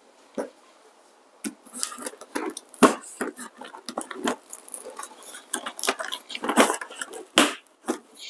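A screwdriver prying heavy metal staples out of the top of a cardboard box: irregular scraping and clicking that starts about a second and a half in, with a few sharper snaps.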